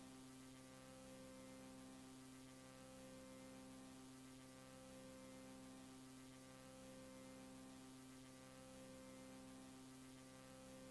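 Near silence with a faint steady electrical hum of a few low tones, one of which drops out briefly about every two seconds.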